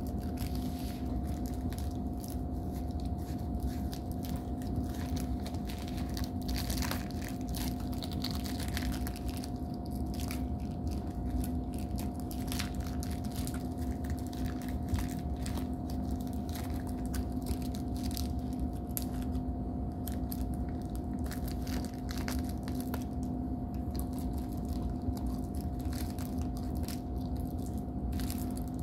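Plastic snack wrapper crinkling as it is handled and unwrapped, with biting and chewing, over a steady low hum.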